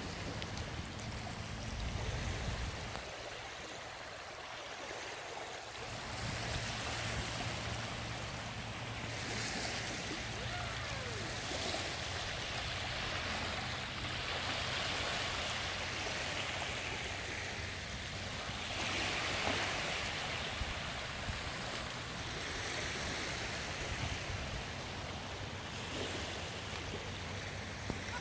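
Small, gentle waves lapping and washing onto a shallow sandy shore, swelling a little every few seconds.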